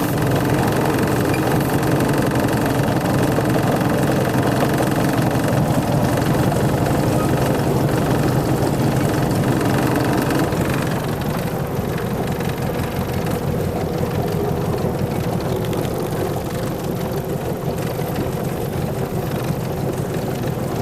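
120 HP MerCruiser inline-four sterndrive engine of a 1976 Starcraft Holiday boat running steadily at low speed; about halfway through its note drops and it gets a little quieter.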